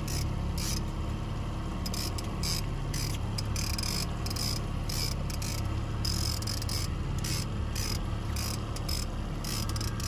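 A trolling reel ratcheting in irregular buzzing bursts as a hooked fish fights against the bent rod, over the steady low drone of the boat's outboard motor.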